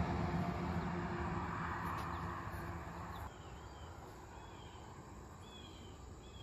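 A vehicle's engine hum fading away, ending about three seconds in. Then quiet outdoor background with faint high chirps about once a second.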